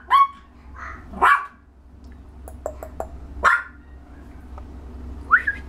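A six-week-old puppy giving four short, high-pitched yaps, spaced a second or two apart, with a few faint clicks between the second and third.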